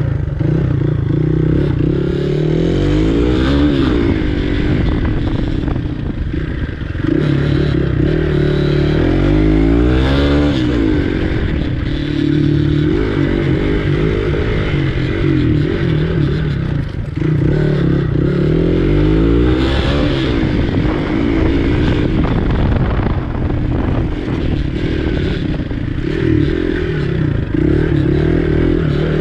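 Dirt bike engine revving up and dropping back over and over as the rider works the throttle through the course, heard up close, with some clatter mixed in.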